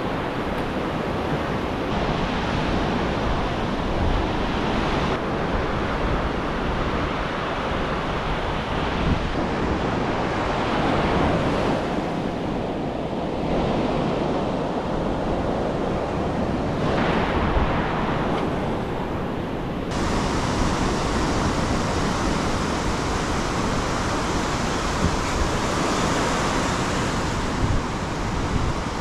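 Ocean surf breaking and washing up the beach, a steady rushing noise with wind buffeting the microphone. The sound shifts abruptly in brightness several times, where the footage is cut.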